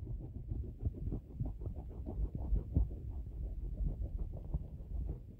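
Low, irregular rubbing and soft tapping from strokes drawn on a tablet touchscreen, picked up by the tablet's own microphone.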